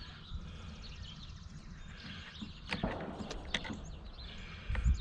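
Birds chirping over a low outdoor background, with a few short clicks and taps about halfway through and again a little later, as small parts are handled while a carburetor is fitted to a chainsaw.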